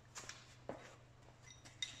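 Faint footsteps on a concrete floor: a few soft knocks and clicks, two of them near the end with a brief high ring, over a low steady hum.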